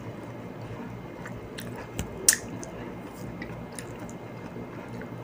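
Hands peeling an orange close to the microphone: small crackling, tearing sounds of the peel coming away, with one sharp click a little over two seconds in, over a steady low hum.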